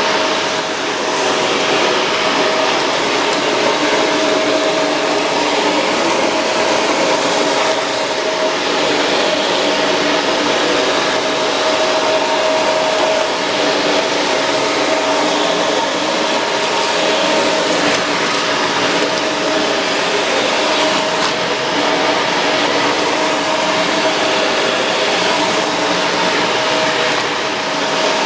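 Shark Rotator Pro Lift-Away NV500 vacuum cleaner running steadily: a rush of air with a steady motor whine.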